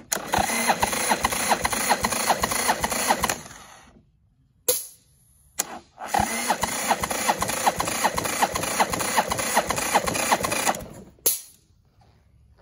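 Harley-Davidson Sportster 883's air-cooled Evolution V-twin being cranked over on its starter without firing, for a compression test with a gauge screwed into a spark plug hole. There are two cranking bursts of a few seconds each, each an even, rhythmic churning that stops abruptly, with a few short clicks in the pause between them.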